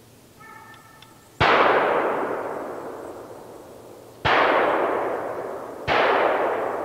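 Three shotgun shots, the second and third about a second and a half apart, each echoing off the woods for a couple of seconds. A hound bays faintly just before the first shot.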